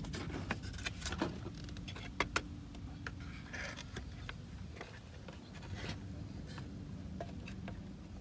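Plastic seat-side trim panel being handled and pushed into place by hand, with scattered light clicks and knocks as its tabs seat.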